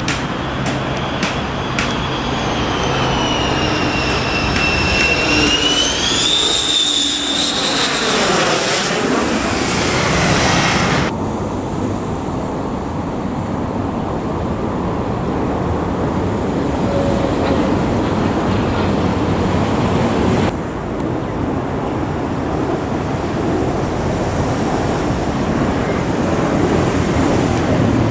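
Twin jet engines of an F-15SG fighter on approach, a high whine over a rushing noise that dips and then rises in pitch as it passes, cutting off abruptly about eleven seconds in. Then a Fokker 50's turboprops drone steadily as it flies by. From about twenty seconds in comes engine noise again as an F-15SG climbs out.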